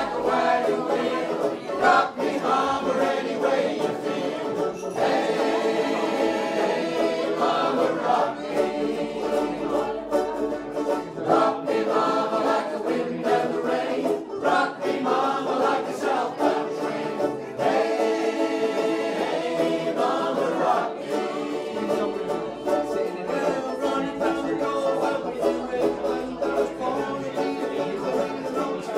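Ukulele band strumming in unison while the players sing together, the voices coming in phrases of a few seconds over a steady strummed rhythm.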